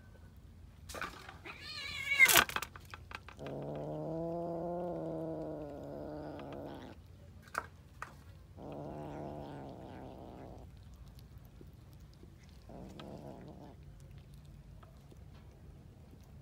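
Cat making low, drawn-out growls over the food tray, three times, the first about three and a half seconds long and the last short and faint. Shortly before them comes a brief, loud, high-pitched cry with a few sharp clicks.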